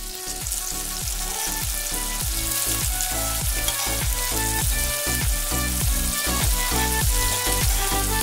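Sliced onions, garlic and green chillies sizzling as they fry in hot oil in an aluminium kadai. Background music with a steady thumping beat plays over it and grows louder.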